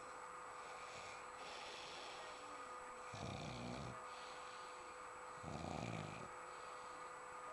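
A sleeping man snoring: two snores, each under a second long, the second about two seconds after the first, with quieter breathing between.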